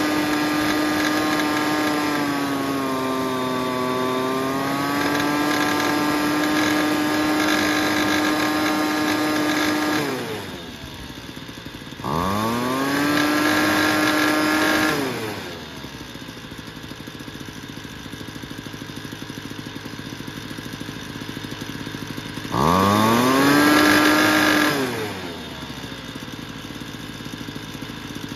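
Homelite Vac Attack II leaf blower's small two-stroke engine running at high speed, dipping briefly a few seconds in, then dropping to idle about ten seconds in. It is revved up twice from idle, each time for two or three seconds, and falls back to idle each time. The blower is being test-run after a tune-up while its carburetor is set.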